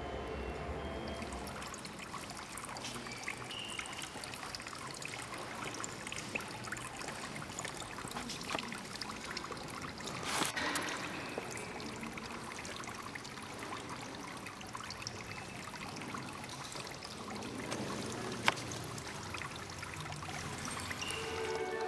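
Water trickling steadily from a miniature fountain in a nativity scene, with one sharp click near the end.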